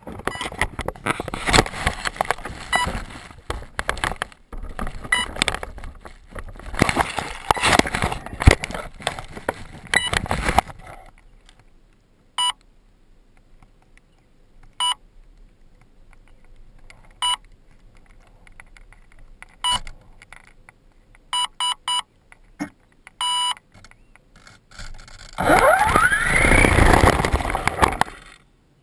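Handling clatter and knocks on an RC helicopter for about ten seconds, then a series of short electronic beeps from its electronics, some single and some in quick runs. Near the end the rotor motor spools up with a rising whine that levels off high and then cuts off.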